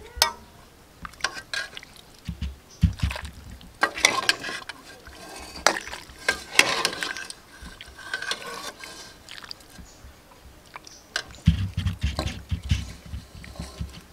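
Metal ladle scooping soup from an aluminium pot and pouring it into a steel bowl: liquid splashing and pouring, with repeated clinks of the ladle against the metal rims. There are dull low thumps about two and a half seconds in and again near the end.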